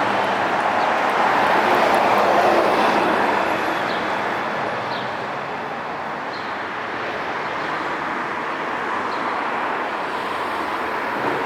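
Downtown street traffic: a vehicle goes by, loudest about two seconds in, then a steady wash of road traffic noise.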